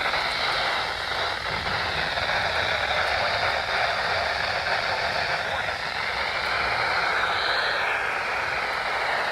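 Static hiss from a radio picking up a weak weather broadcast, with a voice faint and garbled beneath it.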